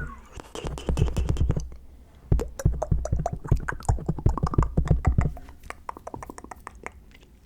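Close-miked ASMR mouth sounds: rapid clicks and pops from the tongue and lips, with low thumps, in two dense bursts; the second burst stops a little after five seconds in, leaving fainter scattered clicks.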